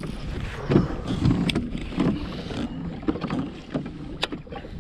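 Handling noise aboard a fishing kayak: irregular low rumbling and knocking as the rod and gear are moved, with a couple of sharp clicks.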